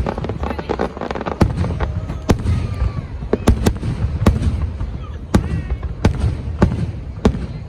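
Fireworks show: aerial shells bursting in an irregular series of about a dozen sharp bangs over a steady low rumble.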